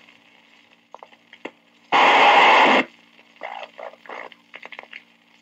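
Old police radio channel recording, played back at half speed, with a low steady hum and faint clicks. About two seconds in comes a loud burst of radio static lasting under a second, followed by faint broken crackles.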